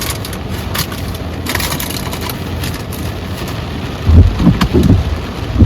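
Steady rain falling on a car, a loud even hiss with scattered crackles. A few heavy low thumps come about four seconds in, and another near the end.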